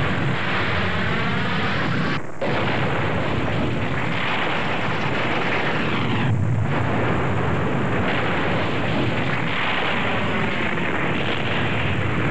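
Loud, steady roar of a huge fire. It drops out briefly about two seconds in and dips again about six and a half seconds in.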